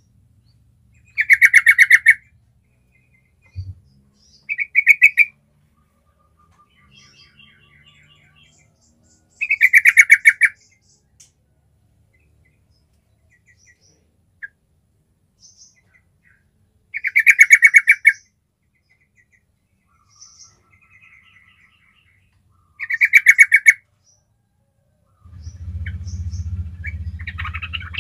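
Yellow-vented bulbul (trucukan) calling: five loud, rapid chattering phrases of about a second each, several seconds apart, with faint short chirps between them. A steady low hum starts near the end.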